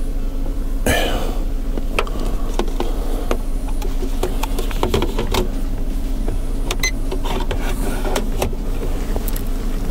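A steady low mechanical hum with many scattered clicks and knocks, and a louder rustling noise about a second in.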